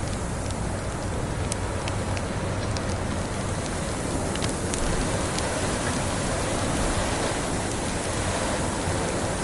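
Steady rushing noise of a snowstorm, mixed with occasional sharp crackles and pops from a wood fire.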